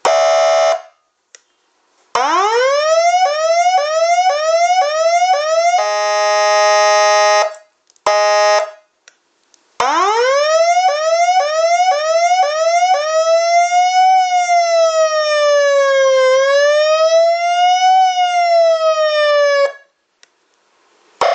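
13-tone electronic police escort siren running through its tones. First comes a brief horn blast, then a fast run of rising chirps at about two a second, then a steady electronic horn tone and another short blast. The chirps start again and turn into a slow wail that rises and falls about every two seconds, cutting off shortly before the end.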